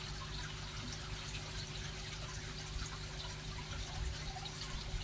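Water trickling steadily, with small drips and light splashes, over a faint steady hum.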